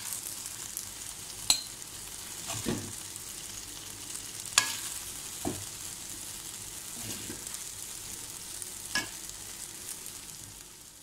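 Metal spoon scraping and clinking against a metal wok as cooked okra (bhindi) masala is scooped out, with several sharp clinks, the loudest about a second and a half and four and a half seconds in. Under it runs a steady hiss of the hot pan sizzling.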